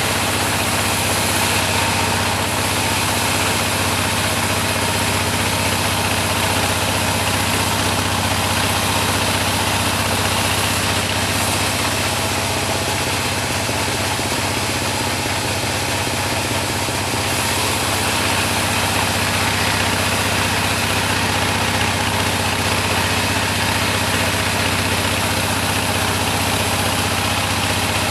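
Type 26 sawmill bandsaw running steadily: a constant machine hum with a dense hiss over it, unchanging throughout.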